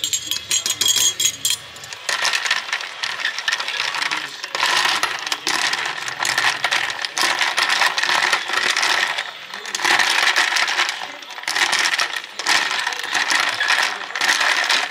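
A few sharp clinks, then ice cubes rattling and clinking continuously against a glass as an iced matcha is stirred briskly with a straw.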